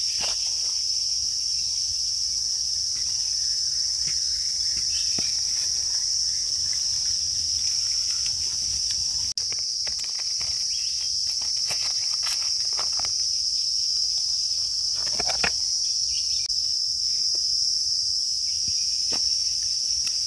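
Steady high-pitched insect chorus droning without a break, with scattered brief rustles and clicks, the most marked about 15 seconds in.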